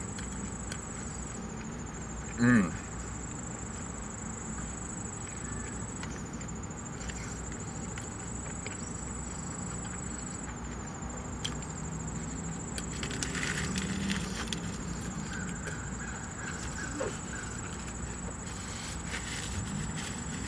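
Restaurant room tone with a steady high-pitched whine and faint background voices. A brief, loud squeak-like sound with a sliding pitch comes about two and a half seconds in.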